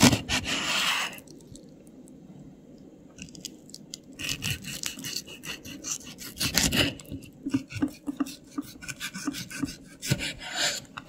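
Miniature kitchen utensils rasping and scraping, with light clicks and taps in between. A loud rasp in the first second, then further scraping strokes about four, seven and ten seconds in.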